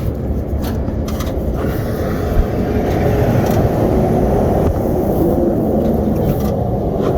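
Volvo VNL semi truck's diesel engine idling steadily.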